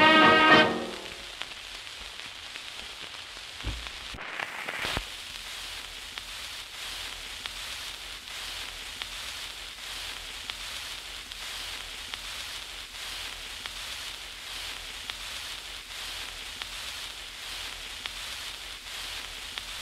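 Brass dance-band music ends about a second in, then a steady faint hiss with fine crackle, the surface noise of a record between tracks, with a couple of clicks about four to five seconds in.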